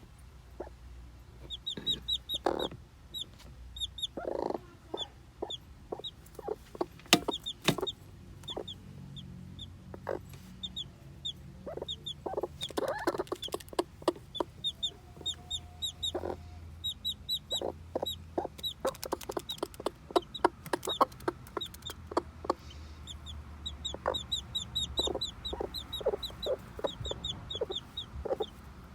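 A broody hen clucking in short low calls while her newly hatched chick peeps in quick high runs that start and stop.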